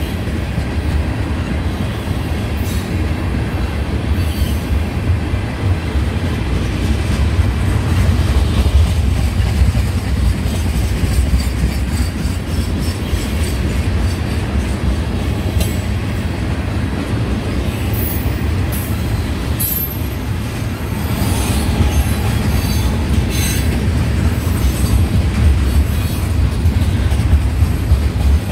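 Freight train of loaded hopper cars rolling past close by: a steady heavy rumble of steel wheels on the rails, with a few sharp metallic squeals and clanks about two-thirds of the way through.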